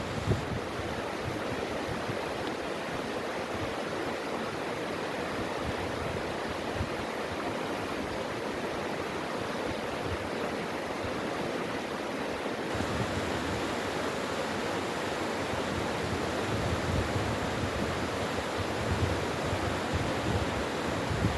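Mountain stream water rushing steadily over rocks, with some low rumbling in the second half.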